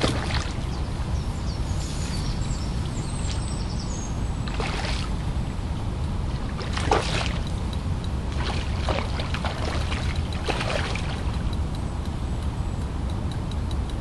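Steady low outdoor rumble with about five short rattling clicks at intervals.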